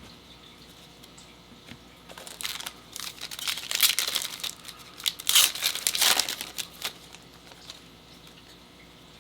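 Foil trading-card pack wrapper being torn open and crinkled, a few seconds of rustling tearing that is loudest in the middle and dies away after about seven seconds.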